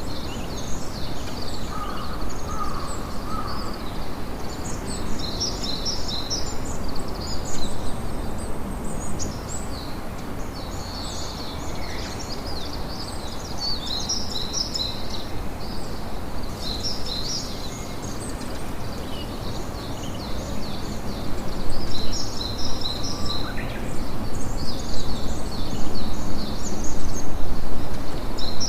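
Many small birds chirping and chattering over a steady rush of wind and sea surf, with the rushing growing louder near the end.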